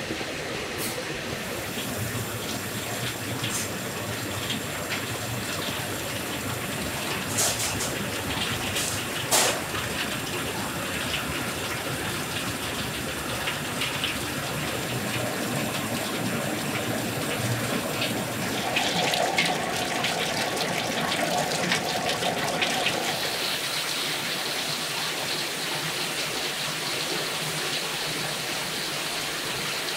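Steady rushing of water and machinery from a soybean grinder, with ground soy slurry pouring out into a steel pot. A couple of sharp clacks come about seven and nine seconds in, and a brief hum sounds a little after the middle.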